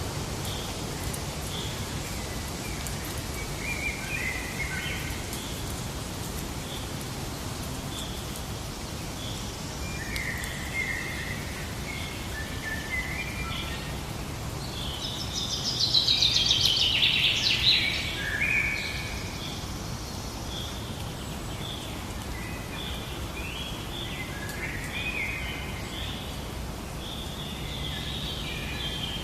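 Birds singing and chirping in short repeated phrases over a steady outdoor background hiss, with a louder burst of rapid, chattering song about halfway through.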